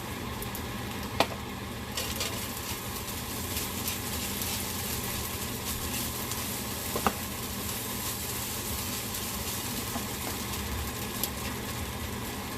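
Fried rice sizzling in a hot pan as it is stir-fried, with a sharp knock of the utensil against the pan about a second in and again about seven seconds in.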